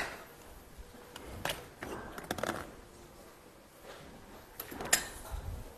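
Scattered light clicks and knocks of kitchen handling at a nonstick pan, in small clusters about a second and a half in and again near the end.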